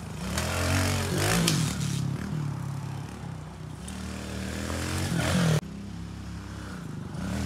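Kawasaki KLX110 pit bike's small four-stroke single revving up and down as it is ridden over dirt jumps and berms. It climbs in pitch about five seconds in, then drops off sharply.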